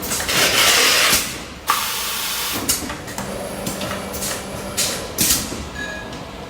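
Machinery noise: a loud hiss for about a second and a half, then scattered metallic knocks and clanks over a low steady hum.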